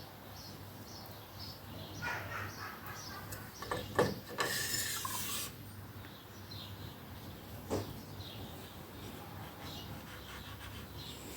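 Parts of a Ducati 749S front fork being handled as the spring goes back into the fork tube: a few light knocks, about four seconds in and again near eight seconds, and a brief scraping rub just after the first knock.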